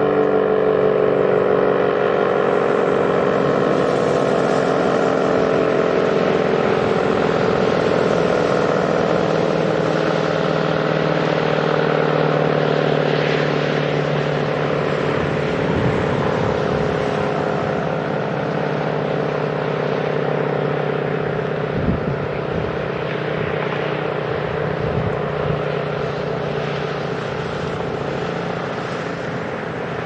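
ACA P-50 electromechanical warning siren winding down after its alert signal: its wail slides slowly lower and gets gradually quieter, breaking up into a whirring rumble as the rotor coasts down. A brief thump about two-thirds of the way through.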